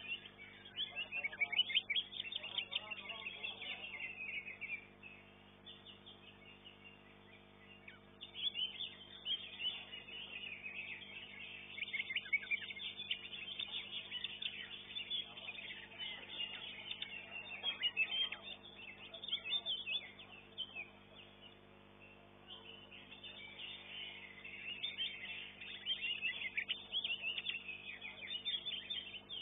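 Greater green leafbird (cucak ijo) singing: bouts of rapid, chattering high notes lasting several seconds, with short pauses between bouts.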